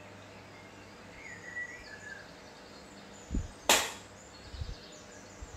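A single sharp knock about three and a half seconds in, with a soft low thump just before it and a couple of small thumps after; birds chirp faintly in the background.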